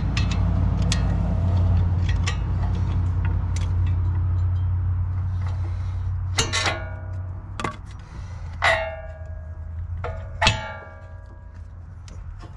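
Steel pry bars clanging against the front steering knuckle and suspension while the CV axle is being pried out: three loud, ringing metal clangs about two seconds apart, with a few lighter knocks. Before the clangs there is a steady low hum.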